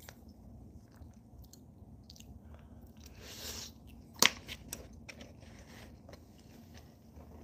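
A person chewing food with small wet clicks. About three seconds in there is a soft breath out, then one sharp click a moment later.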